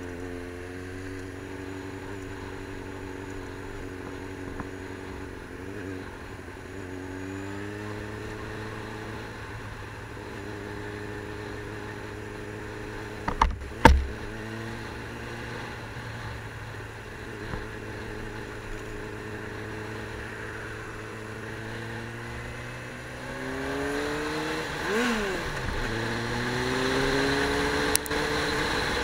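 A vehicle engine under way, its pitch climbing and then dropping again several times as it accelerates through the gears. Two loud knocks come close together about halfway through.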